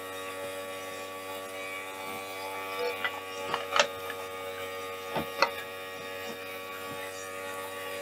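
Battery-powered air conditioner's compressor running steadily during refrigerant charging, a hum with many overtones, turned up almost to full speed. A few light clicks and knocks about three and five seconds in as the gauge manifold and hoses are handled.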